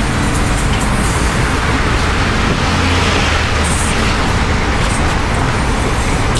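Steady drone of a car's engine and tyres on a wet road, heard from inside the cabin, with rain and spray noise over it.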